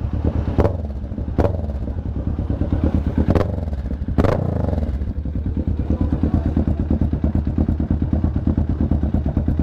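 Kawasaki Ninja 650 parallel-twin engine breathing through a newly fitted Villain shorty muffler, idling with four quick sharp blips of the throttle in the first five seconds, then settling back to a steady idle.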